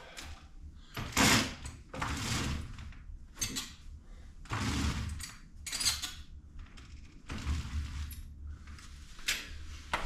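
Sliding glass balcony-glazing panels being pushed by hand along their track, giving several short scraping sounds with light knocks.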